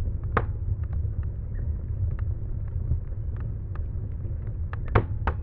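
Fire crackling: irregular snaps and pops over a steady low rumble, with sharper snaps about half a second in and twice near the end.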